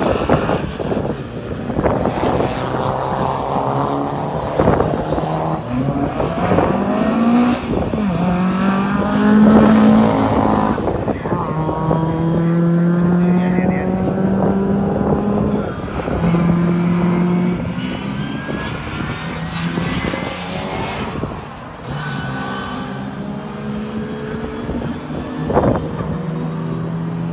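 Rally car engines accelerating hard through the gears, the engine note climbing repeatedly and dropping briefly at each gear change.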